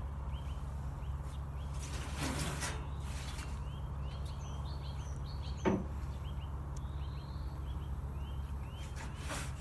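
A small bird chirping over and over in short calls, over a steady low hum of outdoor background noise. Two brief noises cut in, a longer hissing one about two to three seconds in and a sharp short one near six seconds.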